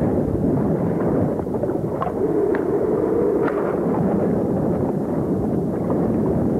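Turbulent water in a low-head dam's recirculating hydraulic, heard from a camera tumbling underwater in the backwash. It is a loud, steady, deep rumble with a few faint clicks.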